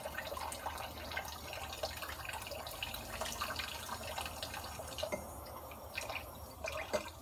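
Water running and splashing in a kitchen sink as dishes are washed by hand. The flow drops away about five seconds in, leaving a few drips and small splashes.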